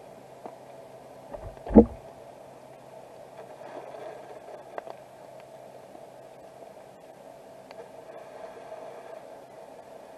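Underwater sound picked up by a submerged camera: a steady hum with a few faint ticks, and one dull thump about two seconds in.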